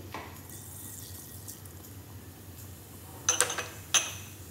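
Mustard seeds sizzling in hot ghee in a stainless steel pan: a steady frying hiss. About three and four seconds in come two sharp metallic clinks.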